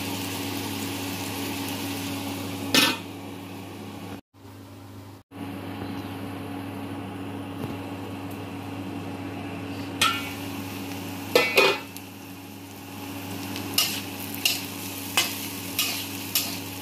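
Diced vegetables sizzling gently in a wok over a steady low hum, with a few metal clinks; near the end a metal spatula scrapes and taps against the wok in a quick series of strikes as the vegetables are stirred.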